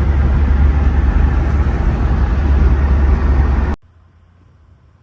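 Nissan Hardbody pickup driving, heard from inside the cab: steady engine and road noise with a strong low rumble. It cuts off abruptly near the end.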